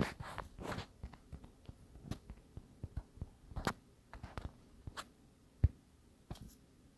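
Irregular soft taps and clicks of hands handling a device, with one sharper knock about five and a half seconds in.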